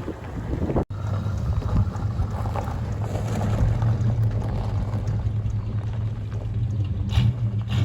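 An engine running steadily with a low, even hum, broken by a momentary gap about a second in.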